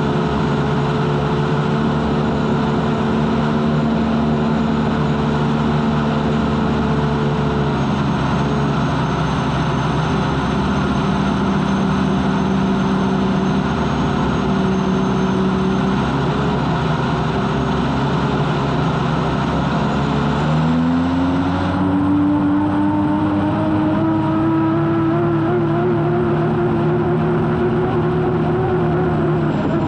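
Unlimited hydroplane's Lycoming T55 gas turbine engine heard onboard, running steadily under a constant rush of noise, then spooling up about two-thirds of the way in with its pitch rising and climbing on, before dropping off right at the end.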